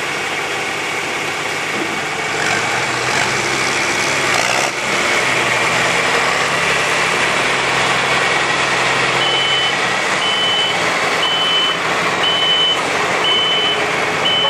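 John Deere 4020 tractor engine under full load, pulling a weight-transfer sled down the track; it grows louder about two seconds in and holds steady. From about nine seconds in, a reversing beeper sounds about once a second.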